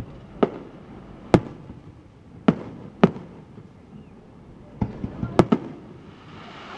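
Aerial fireworks shells bursting overhead: about eight sharp booms at uneven intervals, several coming close together near the end, each trailing off in a short echo.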